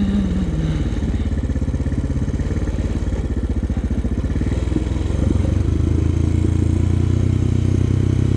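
Honda TRX400X sport quad's single-cylinder four-stroke engine running at low speed with a steady pulse, getting louder about halfway through as the throttle opens.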